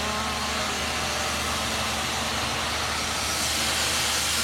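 A machine cutting metal: a loud, steady hissing noise that grows brighter about three seconds in.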